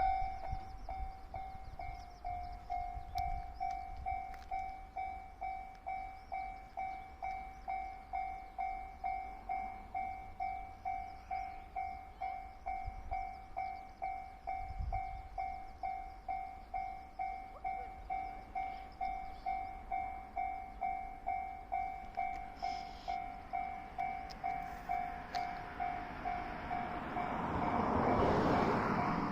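Electronic level-crossing warning bell of a JR railway crossing, dinging steadily at just under two strikes a second. Near the end a train passes, its running noise swelling up under the bell.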